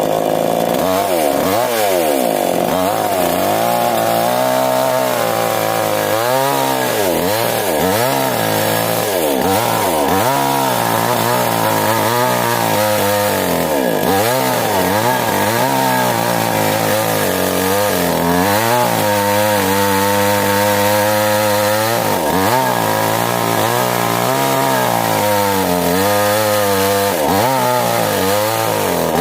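A two-stroke chainsaw fitted with a Stihl chain on a V-Tech bar runs steadily at high speed throughout, cutting wood, its engine note holding a constant pitch.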